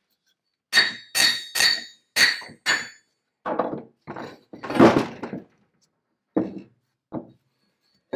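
Heavy rusted steel parts of a large antique J.H. Williams No. 16 chain pipe wrench being handled and worked apart on a wooden workbench. Five ringing metal-on-metal clinks come in the first three seconds. Duller knocks and scraping follow, then two short thuds near the end.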